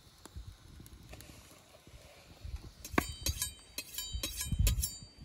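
Two steel knife blades drawn and struck against each other in a quick run of strokes, each stroke leaving a ringing metallic tone: a knife being honed against another blade. The strokes start about three seconds in and last about two seconds.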